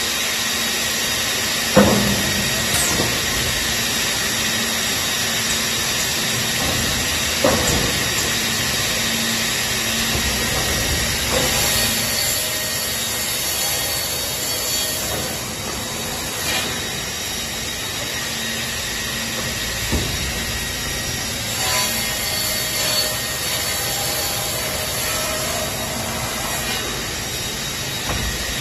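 Holztek CNC panel saw running, its travelling saw blade cutting through stacked wood panels with a steady whine and a hiss of sawing. Several sharp knocks stand out from the machine, the loudest about two and seven seconds in.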